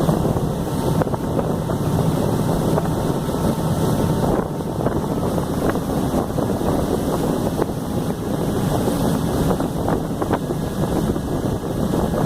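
Wind on the microphone over a harbour ferry's engine, which runs steadily with a low hum underneath.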